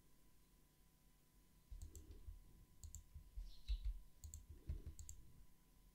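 Several faint, sharp clicks of a computer mouse and keyboard, scattered a second or so apart as objects in a 3D program are selected and moved.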